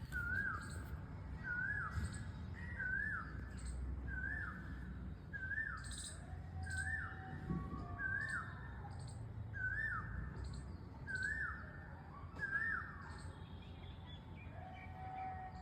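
A songbird repeating the same short whistled call about once a second, with fainter chirps from other birds and a low rumble underneath. The repeated call stops a couple of seconds before the end.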